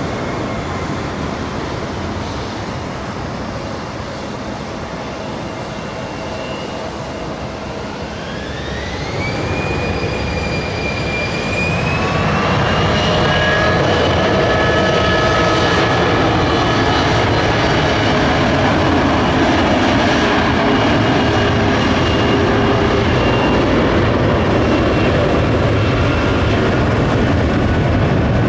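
Twin rear-mounted turbofans of a Bombardier CRJ regional jet spooling up for takeoff: a whine rises in pitch about eight seconds in, then the engines grow louder and hold a steady high whine over a broad roar as the jet rolls down the runway.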